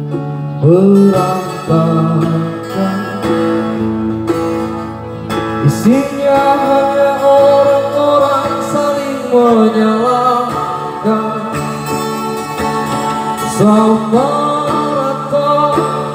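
Live acoustic song: a man singing into a microphone while playing an acoustic guitar, heard through the stage's speakers.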